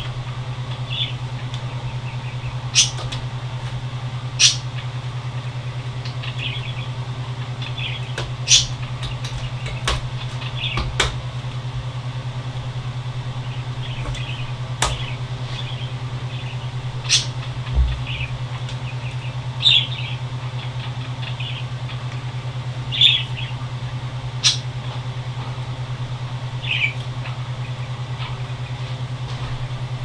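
Scattered sharp clicks and short squeaks of computer parts and tools being handled, a dozen or so irregular ticks, over a steady low hum.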